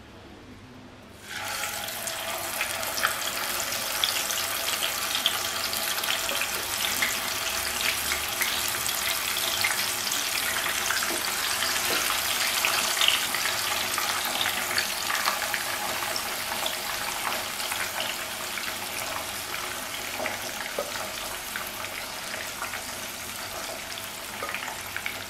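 Marinated chicken quarters frying in hot oil, starting to sizzle suddenly about a second in as the meat goes in, then a steady crackling sizzle that eases a little toward the end. The oil is still hot from frying onions, with the burner switched off.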